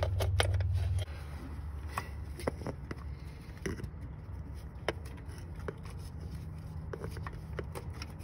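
Light metallic clicks and scrapes of a socket on a swivel and extension tapping against engine parts as it is worked down under the intake manifold. A low hum stops about a second in.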